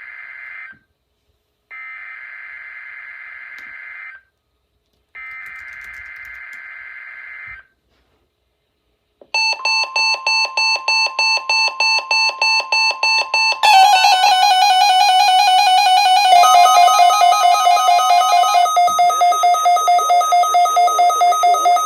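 Emergency Alert System tones: three bursts of buzzing SAME header data, then after a short pause a pulsing electronic alarm at about four beeps a second. A few seconds later it grows louder as more alarm tones are layered on top.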